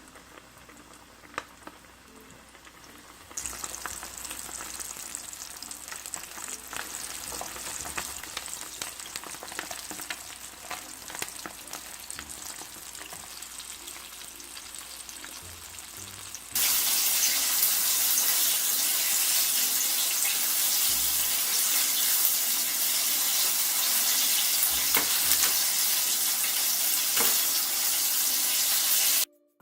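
Battered chicken drumsticks deep-frying in hot oil: a steady sizzle with many small crackling pops. It jumps louder suddenly about three seconds in and again about halfway through, then stops abruptly near the end.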